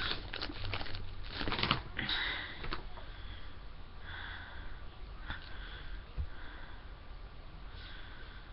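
Soft breathing and sniffing close to the microphone, louder in the first two seconds, then quieter and recurring about once a second.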